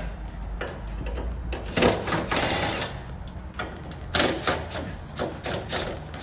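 Cordless impact driver hammering in short bursts as it backs out the hood hinge bolts: one longer burst about two seconds in, then shorter ones past the four-second mark.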